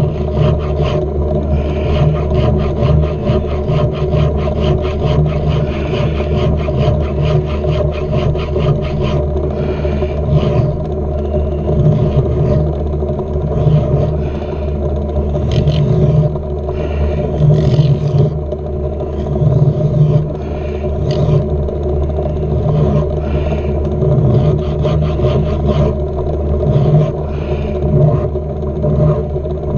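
Metal lathe running steadily while a hand file is worked against the small pin turning in the chuck. For about the first nine seconds the file scrapes in fast, even strokes, and after that the strokes are irregular.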